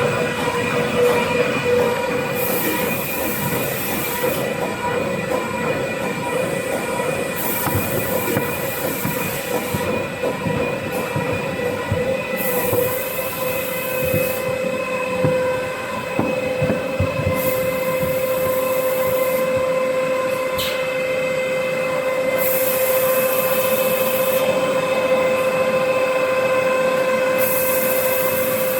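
XY-AI-281 automatic toilet paper log saw cutting machine running: a steady mechanical whine with several held tones, and a high hiss that swells and drops every few seconds.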